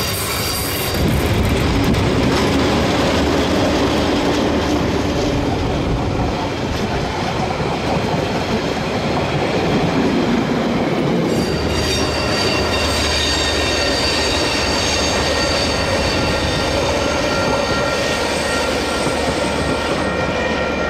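Pair of DJ class diesel-electric locomotives working hard up a grade as they pass close by, followed by carriages rolling past with wheels clicking over the rail joints. High steady whining tones come in about halfway through.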